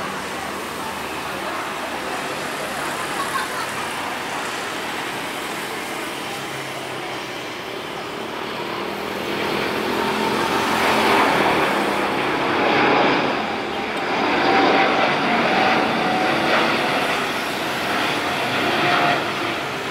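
Jet airliner engines passing. The noise grows louder about halfway through, swells and fades, and carries a faint whining tone over a steady background rumble.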